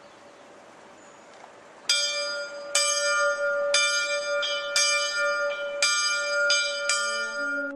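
A bell struck repeatedly, about seven strikes roughly a second apart, each ringing on with bright high overtones.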